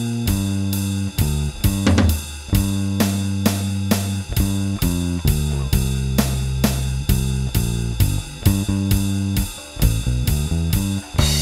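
Mustang electric bass with a Nordstrand angled-pole pickup, run through a Seymour Duncan Studio Bass Compressor, playing a slow blues line of held, sustained notes over a drum track with a steady beat of about two hits a second. A cymbal crash comes in near the end.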